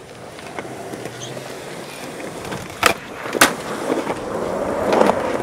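Skateboard wheels rolling on concrete, the rolling growing louder toward the end. Near the middle come two sharp clacks of the board about half a second apart, a trick's pop and landing.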